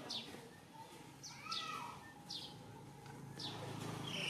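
Short, high-pitched animal chirps, each falling quickly in pitch, coming a few times about a second apart, over a faint low hum.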